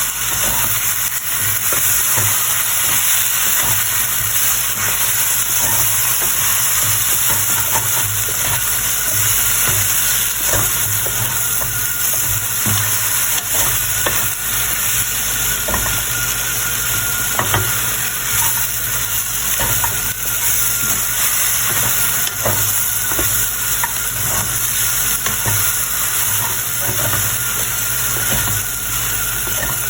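Chicken and ground spices sizzling steadily in hot oil on medium heat while being stirred, with frequent short scrapes and taps against the pan.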